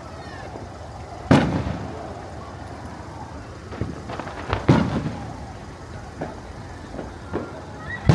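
Aerial fireworks show shells bursting: two loud booms about a second and a half and nearly five seconds in, with several fainter pops between and after, and another boom right at the end.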